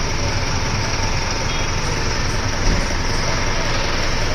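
Steady road traffic noise: vehicle engines running, with a small knock about two and a half seconds in.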